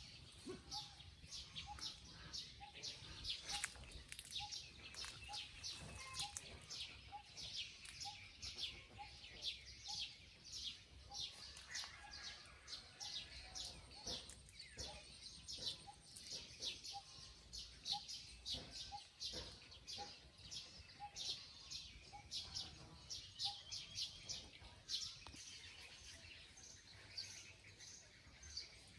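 Birds chirping and calling faintly, many short high chirps overlapping, with a steady series of short lower notes, about one and a half a second, that stops about two-thirds of the way through.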